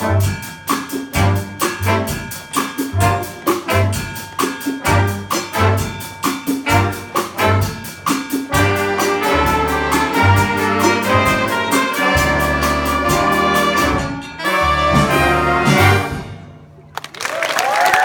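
A middle school jazz ensemble plays the closing bars of a chart. Trumpets, trombones and saxophones play over a steady drum beat, then hold long chords and end on a final chord that cuts off about sixteen seconds in. Applause starts near the end.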